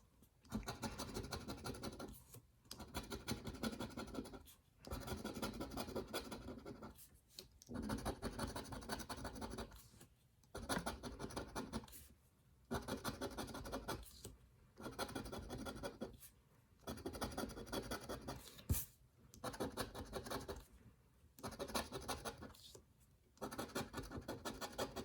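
Scratch-off lottery ticket being scratched with a handheld scratcher tool, in repeated bursts of about two seconds with short pauses between them, as the latex coating is rubbed off.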